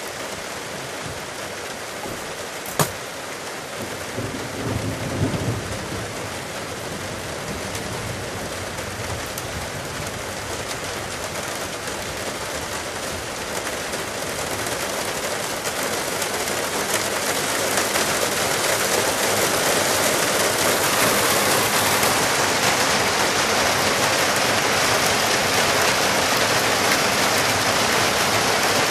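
Debris flow of mud and boulders rushing down the gorge as a steady, even noise, growing louder from about halfway through. There is one sharp click about three seconds in.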